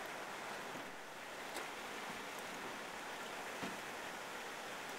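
Steady rush of flowing river water, with a couple of faint knocks.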